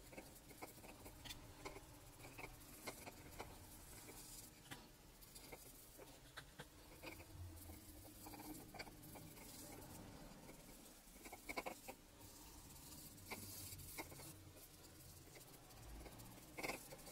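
Faint, scattered taps and scratches of a fine paintbrush dabbing yellow bole into the raised gesso pattern, several small ticks a second, a few a little louder near the end.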